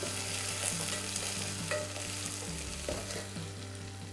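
Chopped onions sizzling as they fry in hot oil in a stainless steel pot, stirred with a steel slotted ladle that clicks against the pot now and then.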